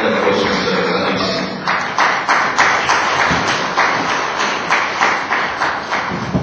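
Audience applauding, with single sharp claps standing out at about three a second over the general clapping.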